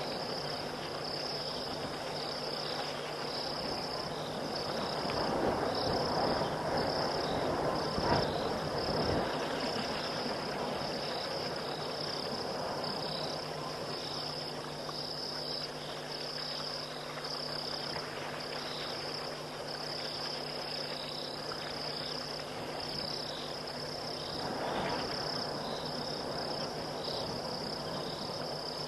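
Night chorus of insects: a steady, rapidly pulsing high trill over a low steady drone, with a rushing haze that swells a few seconds in and again near the end.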